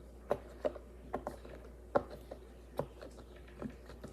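Silicone pop-it fidget toy having its bubbles pressed one after another on the quiet side: a string of soft, short pops at an uneven pace, about ten in all.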